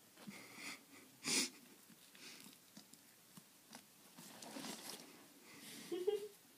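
Quiet breathing and puffs of air from a person with a mouth stuffed full of marshmallows, with one sharp, loud puff about a second in. Near the end comes a short, muffled rising vocal sound with a few small clicks.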